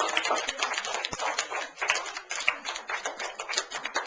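A classroom of children applauding: a dense patter of many hands clapping that thins out near the end.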